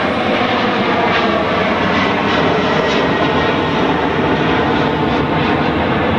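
Motorboat engine running steadily, a continuous drone with no let-up.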